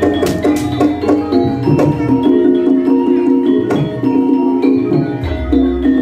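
Gamelan ensemble playing: bronze metallophones ring a dense, fast repeated melody over sharp drum strokes. A deep low note swells about five seconds in.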